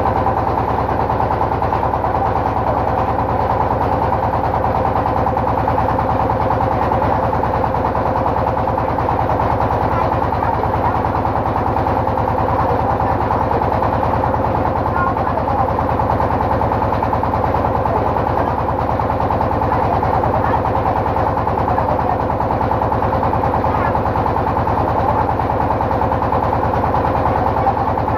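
A boat's engine running steadily at an even speed, heard close up from on board: a fast, even chugging under a steady hum, with no change in pace.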